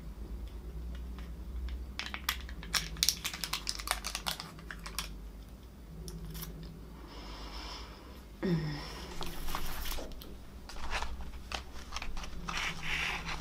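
Foil lid of a ketchup dip cup peeled back with a run of crinkly clicks, then wet mouth sounds of tasting the ketchup, with a short falling 'mm' from her voice about two-thirds of the way through.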